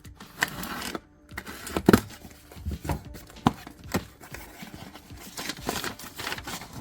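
Cardboard box being opened and handled: taped flaps scraping and rustling apart, with several sharp knocks of cardboard against a surface.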